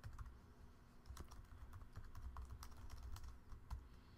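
Faint typing on a computer keyboard: irregular key clicks, about three to four a second, over a low steady hum.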